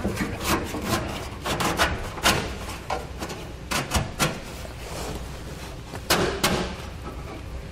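A spacer block being pushed and worked into the gap between a pickup's bed and a frame cross member: irregular knocks, clicks and scrapes, with the sharpest knocks a couple of seconds in, around the middle and about six seconds in.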